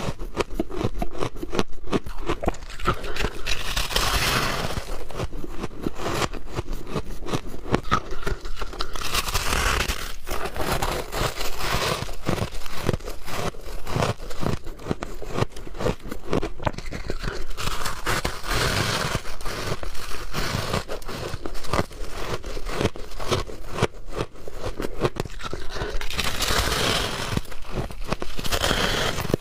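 Soft freezer frost being bitten and chewed close to the microphone: a dense, continuous run of crackly crunches.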